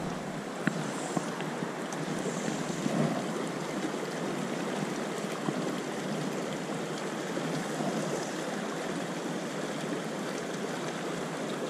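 South Platte River current rushing over boulders and riffles, a steady, even rush.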